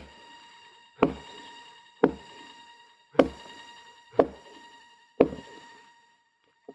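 An axe chopping into a dry felled tree trunk, six hard strikes about a second apart, each a sharp knock with a low thud. Two lighter taps come near the end.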